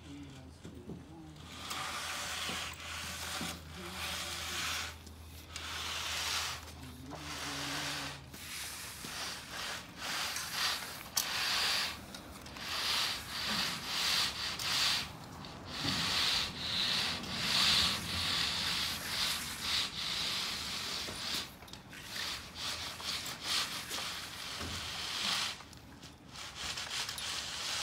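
Long-handled concrete finishing blade on a pole being swept back and forth over a freshly poured, wet concrete slab, giving a repeated scraping swish with each stroke, in surges with short pauses between them.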